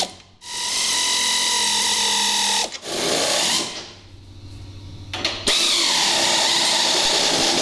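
Pneumatic air ratchet with a 3/4-inch socket running nuts down onto the lower U-bolts of a golf cart's rear lift kit. It whirs steadily in three runs: a long one, a short one about three seconds in, and another from about five and a half seconds on.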